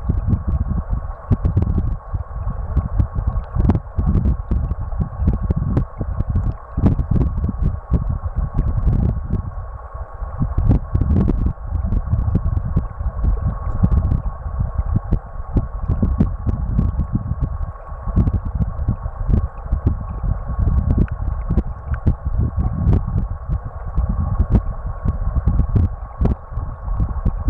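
River current heard from a camera lying underwater in a shallow stream: a muffled, heavily fluctuating low rumble with many scattered small clicks, over a thin steady whine.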